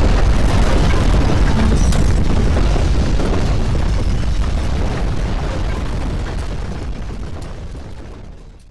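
Loud earthquake rumble: a deep, heavy drone with dense rattling on top, holding steady and then fading away over the last few seconds until it cuts off.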